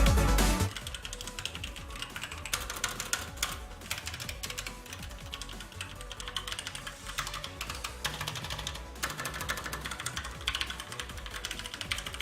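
Typing on a Motospeed GK82 mechanical keyboard: quick, irregular key clicks and clacks for about eleven seconds, after background music cuts off about half a second in.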